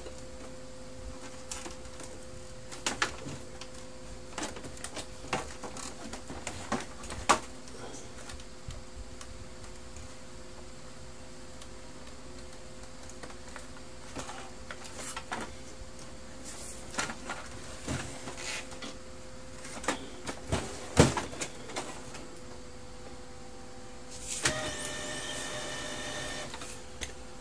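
Plastic clicks and knocks as a Brother DCP-1615NW laser printer's casing and side cover are handled and taken off, over a steady faint hum. Near the end a motor whirs evenly for about two seconds.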